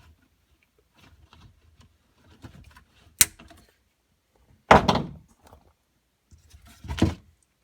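Hand-handling noises from parts being pulled out of a Sea-Doo's engine bay: a sharp click about three seconds in, then two heavier clunks, the loudest just under five seconds in and another near the end, with faint rustling between.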